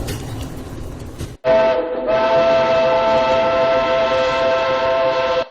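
Low car-cabin road rumble for about a second and a half, then an abrupt cut to a loud, steady whistle-like chord of several held tones that lasts to the end.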